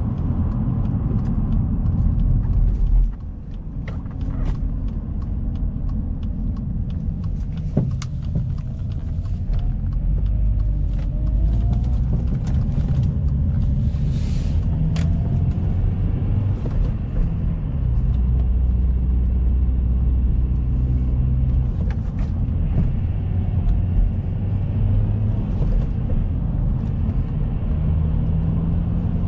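Alfa Romeo 159 on the move: a low engine rumble with road noise, the engine note shifting up and down in pitch. The level drops suddenly about three seconds in, and there are scattered small knocks.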